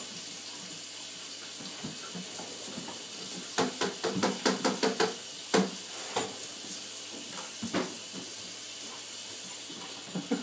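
A golden retriever and a German shepherd puppy play-wrestling: a quick run of clicks and taps of paws and claws on a tile floor a few seconds in, then a few single taps, over a steady hiss.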